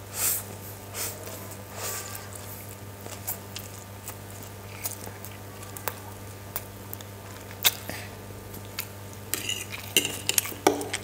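Chicken chow mein noodles being slurped and chewed, with short slurps, wet mouth clicks and a fork clinking and scraping on the plate.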